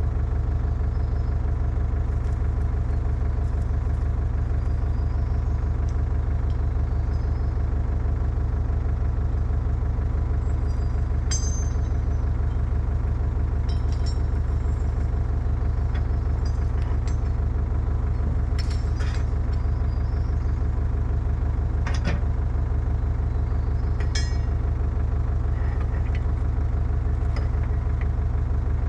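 Excavator's diesel engine running steadily, with a few short sharp clinks over it.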